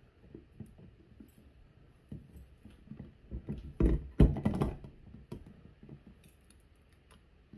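Knocks and clicks of an OCTAVO food chopper's parts being handled and fitted together on its glass bowl: the lid, blade and motor head being adjusted and seated. Scattered small clicks, with a cluster of louder knocks about halfway through.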